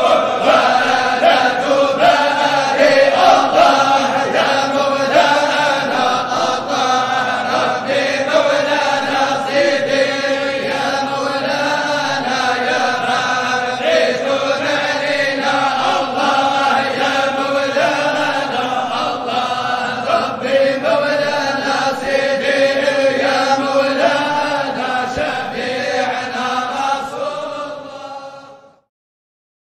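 Sufi qasida chanted in Arabic, sung steadily throughout and stopping abruptly about a second before the end.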